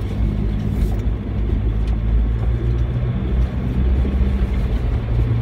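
Engine drone and running noise of an off-road 4x4 heard from inside its cabin as it drives slowly along a muddy track, with a few small knocks and rattles.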